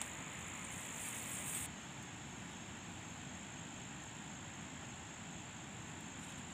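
Insects, such as crickets, make a steady high-pitched drone over an open-air hiss. In the first couple of seconds there is a brighter rustle as bitter melon vines are handled.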